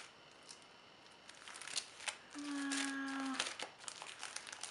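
The plastic sleeve pages of a sticker storage album rustle and crinkle as they are turned, with light clicks and scrapes. About halfway through, a person hums one steady note for about a second.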